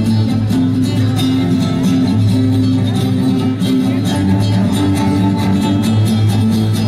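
Live rock band playing an instrumental passage with no vocals: strummed guitar over a steady bass line and drums.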